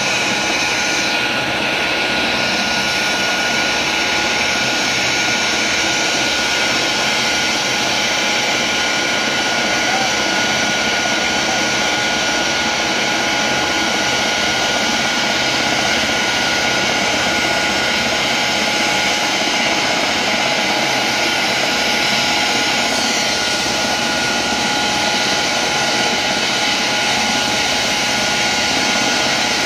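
Turbine helicopter running on the ground with its rotor turning: a steady high turbine whine over a constant rush of engine and rotor noise, holding level throughout.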